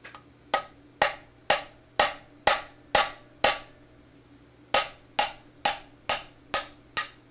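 Claw hammer striking a steel rod used as a drift to drive a pin in a tractor loader's quick-attach mechanism. There are sharp metal-on-metal blows about two a second, each with a brief ring: eight blows, a short pause about three and a half seconds in, then six more.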